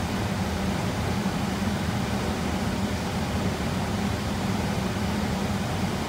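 Blower fan of an old Intertherm four-element mobile home electric furnace running steadily with a low hum, the furnace heating on its first two elements.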